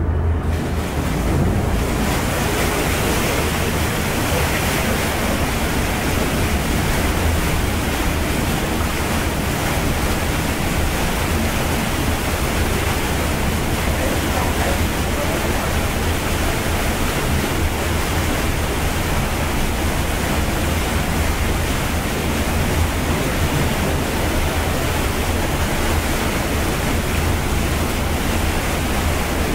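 Motor barge's propeller churning the lock water into a steady rushing wash as the barge gets under way, over a low engine rumble. The rushing sets in about a second in and then holds steady.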